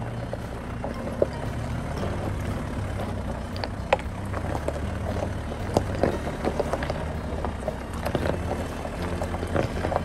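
SsangYong Rexton Sports pickup's tyres rolling slowly over loose gravel and stones on a bumpy track: irregular crunching and popping of stones under the tread, with a few sharper cracks, over a steady low hum.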